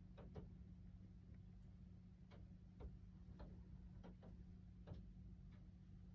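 Faint, irregular small clicks, about nine of them with uneven gaps, over a low steady hum.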